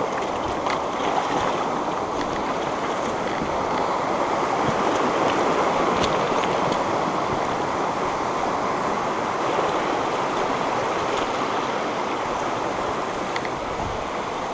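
Shallow mountain stream rushing over rocks and gravel, a steady rush that swells slightly in the middle, with a few faint clicks.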